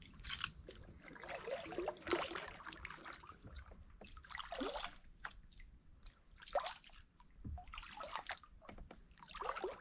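Kayak paddle strokes in still swamp water: the blade dipping, pulling and dripping, with a splashy stroke every second or two.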